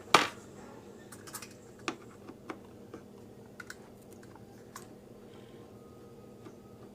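Small, irregular clicks and taps from hands handling computer parts at the motherboard's CPU cooler mount while its screws are being undone, with one louder click right at the start.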